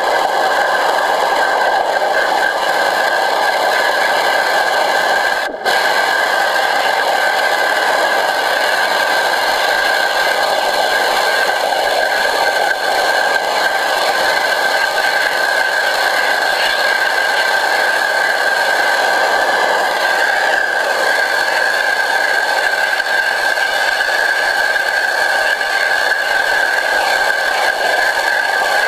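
Pressure washer jet spraying underwater in a pool, heard from below the surface: a loud, steady rushing hiss with a steady high whine through it. It cuts out for an instant about five and a half seconds in.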